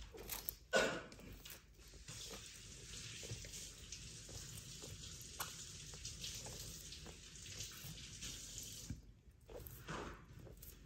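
Water running steadily, as from a tap, for several seconds and then stopping abruptly, after a sharp knock about a second in.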